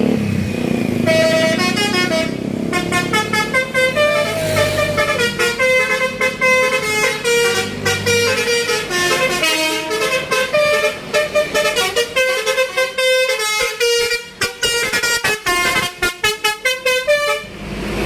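Basuri 'telolet' musical horn on a tour bus playing a fast melody of stepped, pitched notes. It starts about a second in; toward the end the notes turn short and choppy with gaps, and it stops just before the end.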